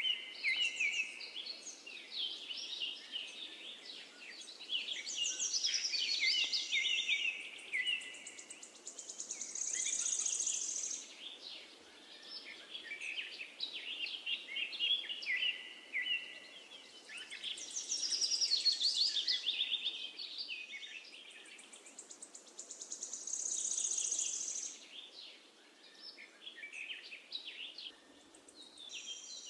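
Songbirds chirping and singing, many quick calls with fast high trills coming back every several seconds over a faint steady hiss.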